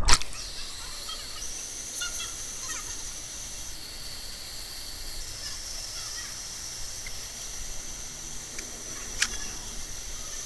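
A splash right at the start, then the steady rush of a small waterfall and stream in a narrow rock canyon, with a few faint knocks.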